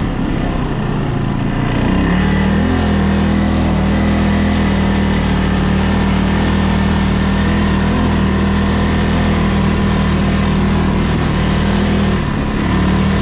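ATV engine running, settling at about two seconds in to a steady, constant pitch that it holds. Near the end the steady note breaks off briefly, then comes back.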